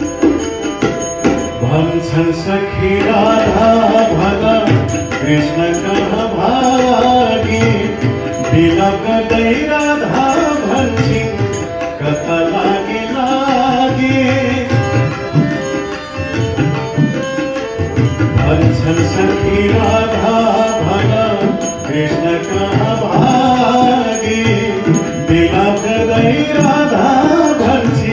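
Harmonium and tabla playing a Nepali devotional bhajan, with a man's voice singing over them through much of the passage.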